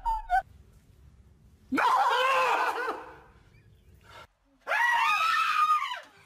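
A person screaming twice: one loud, wavering scream about two seconds in and another near the end.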